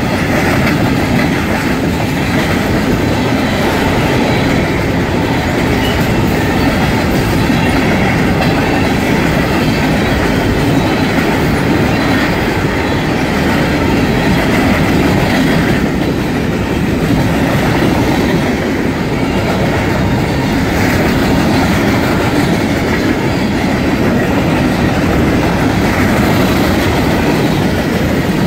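Freight train of covered hopper cars rolling past at close range: steady, loud noise of steel wheels on the rails as car after car goes by.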